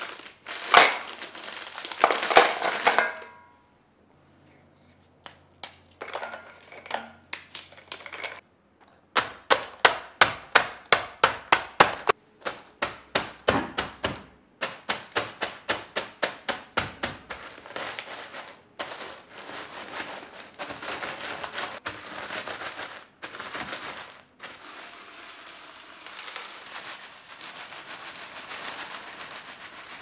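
Marie biscuits being crushed in a zip-lock plastic bag with a tin can: crinkling plastic at first, then runs of sharp thuds and crunches, about four a second at the fastest, easing into slower, softer pressing. Near the end the crumbs are poured into a stainless steel bowl, a steady sandy hiss.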